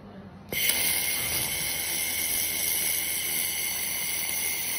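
Handheld 1.5 kW fiber laser welder welding a seam in galvanized steel sheet: a steady hiss with a high tone sets in abruptly about half a second in and holds as the weld runs and throws sparks.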